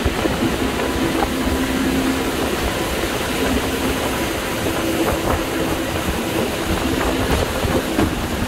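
Motorboat running at speed on a river: a steady engine drone under the rush of wind and water, with wind buffeting the microphone.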